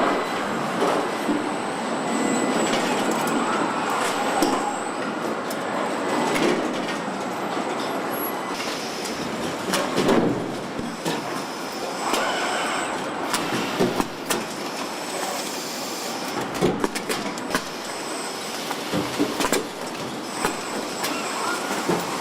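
Car assembly-line machinery running steadily, with frequent short metallic clicks and clanks and a faint high whine.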